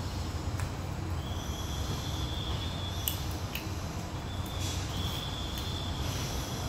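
Spoon scraping and clicking against a non-stick frying pan while scooping food, with two drawn-out high squeaks and a few sharp clicks, over a steady low hum.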